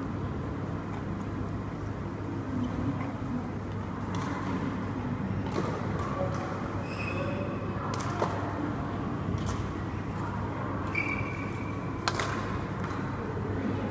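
Badminton rackets striking a shuttlecock during a rally: sharp clicks at uneven intervals, the loudest an overhead hit near the end. A couple of short shoe squeaks on the court floor come in between, over the hall's steady background noise.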